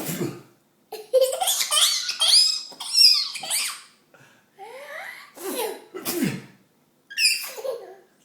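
A young child's voice in a run of short, high-pitched squeals and giggles, about seven bursts with gliding pitch and brief gaps between them.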